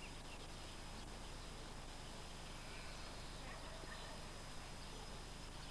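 Faint open-air background: a steady hiss with a thin high whine through it, and a few faint short distant calls over the top.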